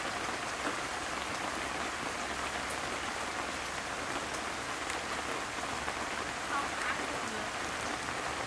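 A steady hiss like rain or running water, with a few faint splashes and ticks from quail being handled and cut over a metal basin of water.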